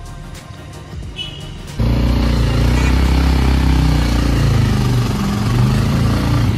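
Soft background music, then suddenly, about two seconds in, a motorbike engine running loudly as it is ridden, its low pitch shifting, with wind noise over the microphone.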